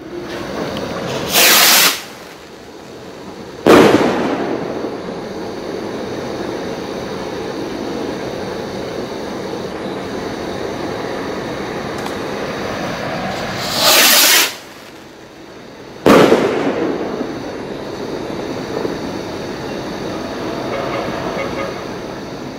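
Two skyrockets each lift off with a short loud whoosh, and about two seconds later each bursts with a sharp bang. The first goes about a second in, the second just past the middle. A steady rushing noise fills the gaps between them.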